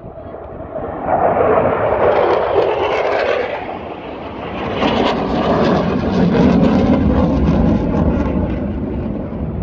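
A fixed-wing airplane flying past at an airshow. Its engine noise swells to loud about a second in, eases briefly, then comes back strong and lower in pitch as it passes.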